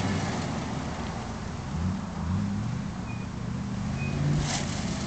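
Toyota Hilux Surf 4x4's engine running under load as it crawls through slippery clay, the revs rising briefly twice about two seconds in. A short knock near the end.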